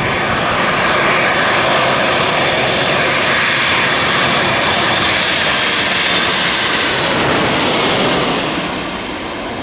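Jet engines of a Boeing 777-200 airliner on landing approach, passing low overhead: a loud, steady jet noise with a high fan whine that slowly falls in pitch. It is loudest and brightest about seven to eight seconds in, then fades as the aircraft goes past.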